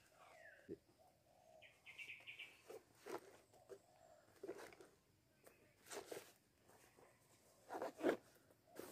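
Quiet, irregular rustling and scraping from hands handling the trap materials, in short bursts that are loudest about eight seconds in. About two seconds in there is a brief, quick run of high chirps from a bird.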